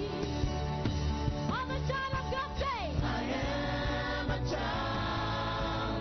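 Gospel praise-and-worship music: a band playing with a steady beat, with singing over it.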